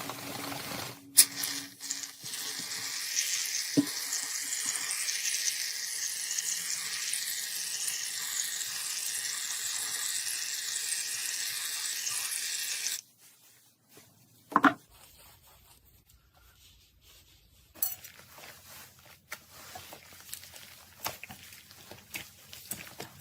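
Slime being handled: a steady fizzing, crackling hiss that cuts off suddenly about 13 seconds in, followed by quieter squishing with one sharp click and then scattered small crackles and pops.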